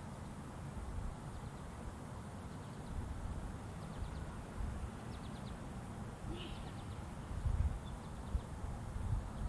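Federal Signal STL-10A electromechanical tornado siren late in its long wind-down after a full alert: the seven-port rotor is spinning slowly and gives only a low rumble. Faint bird chirps come through a little past the middle.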